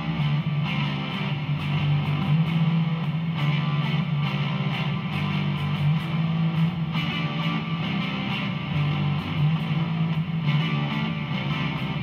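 Electric guitar played continuously through a Behringer V-AMP Pro amp-modelling processor on an overdrive sound. Low notes ring steadily, and a brighter, more cutting layer comes in every few seconds.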